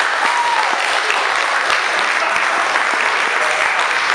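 Audience applauding steadily, with a short rising-and-falling shout over the clapping near the start.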